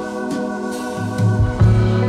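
Background music: sustained instrumental chords, with a low bass note coming in about a second in.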